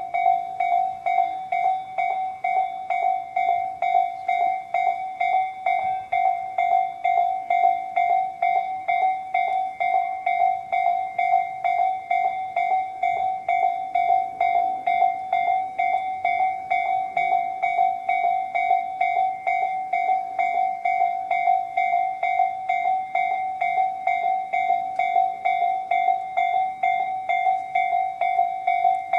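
Japanese level-crossing alarm bells sounding Tobu's electronic 'sound C' from both sides of the crossing. A single ringing tone repeats in rapid, even dings, steady throughout, which means the crossing is warning of an approaching train.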